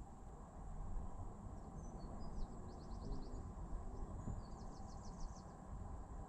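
A small songbird singing twice, each phrase a few chirps running into a quick trill of about half a dozen high notes, over a steady low outdoor rumble.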